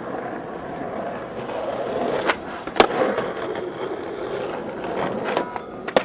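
Skateboard wheels rolling steadily over rough asphalt, with a few sharp clacks of the board: two in the middle and another as the board comes loose near the end.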